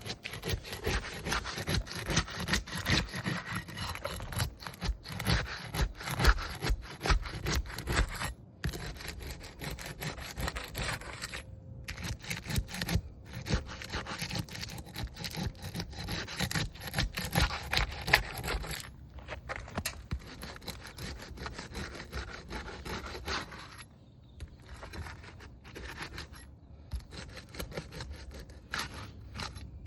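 Asphalt roofing shingles being scraped and pried loose, a rapid, irregular run of scraping and rubbing strokes that thins out in the last third.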